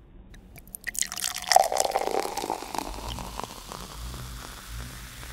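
Beer poured into a glass, the splashing pour starting about a second in and giving way to a fizzing, crackling hiss as the foam settles.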